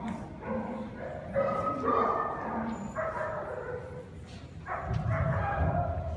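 Dogs barking and yipping, a run of separate calls.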